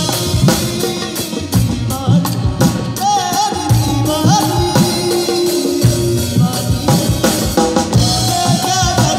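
Live band playing Rajasthani folk fusion: a drum-kit beat under a lead melody on a side-blown flute that bends and slides between notes.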